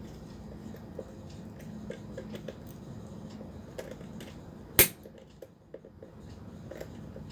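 Small metallic clicks and scrapes of a screwdriver working at the screws of a stainless steel electric kettle, with one sharp, loud metal clink almost five seconds in.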